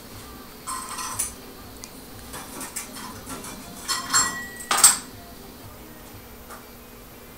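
Metal pots and utensils clinking and clattering at a gas cooker, in a short burst about a second in and a louder cluster around four to five seconds in.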